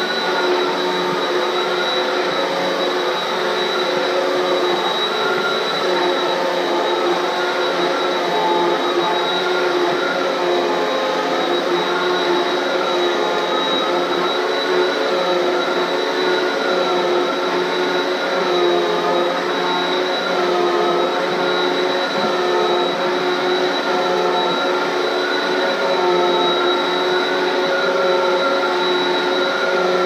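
Upright Hoover bagless vacuum cleaner running steadily as it is pushed over a floor mat, with a steady high whine over its motor hum and a tone that wavers up and down.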